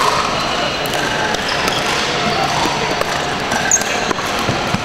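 Busy sports-hall ambience: background chatter of many people with scattered sharp pops of pickleball paddles hitting plastic balls on the surrounding courts.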